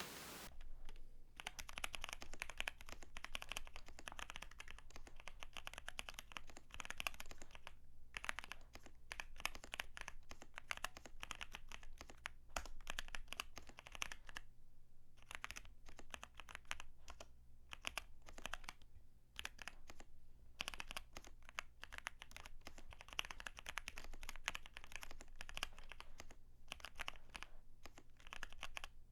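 Typing on a zoom75 mechanical keyboard with Kailh Heavy Burnt Orange tactile switches, fully foamed, with lubed stabilizers: a continuous run of rapid keystroke clacks broken by a few short pauses.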